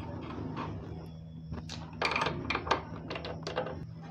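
Spanner and pliers working the front-wheel axle nut and bolt of a motorcycle as the axle is tightened: a quick run of sharp clicks and knocks of tool on metal starting about two seconds in.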